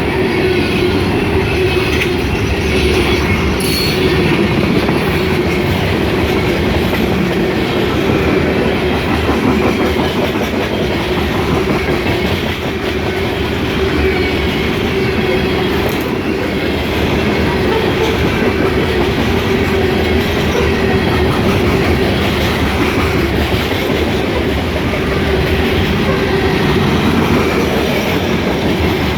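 A freight train of loaded grain hopper cars rolling past, with a steady, loud rumble of steel wheels on the rails. A faint wheel squeal comes in the first few seconds.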